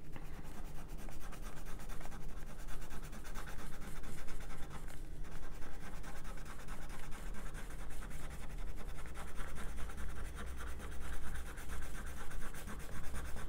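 Crayon scribbling on paper in quick back-and-forth strokes, a steady scratchy rubbing as an area is coloured in.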